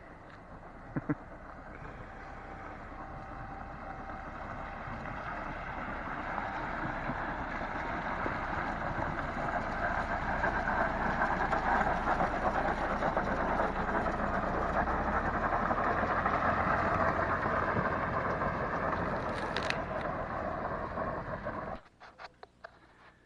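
Vehicle on the move: steady road and running noise that grows louder over the first ten seconds as it picks up speed, then holds and cuts off suddenly near the end. There is a brief click about a second in.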